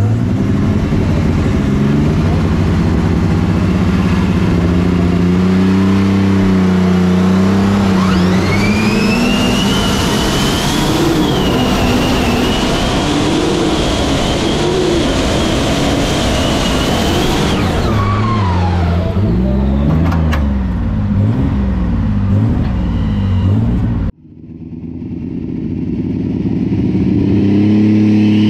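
Superstock pulling tractor's engine running flat out under load on a tractor pull. A high whine climbs about eight seconds in, holds, then falls away as the engine winds down. Near the end the sound cuts off abruptly and the engine comes back, building up again.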